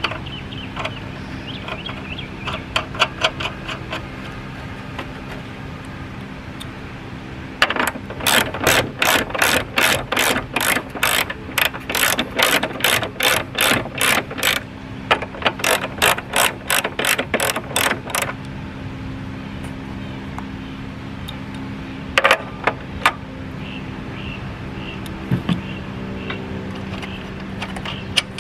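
Hand ratchet wrench clicking as it tightens the nuts on a Toyota Prius front strut's upper mount. The clicks come in a long quick run, about three a second, from roughly eight to eighteen seconds in, with a few scattered clicks before and near the end, over a steady low hum.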